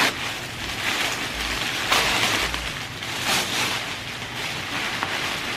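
Rustling and crinkling of gift packaging being unwrapped by hand, with louder crinkles about two seconds in and again a little past three seconds.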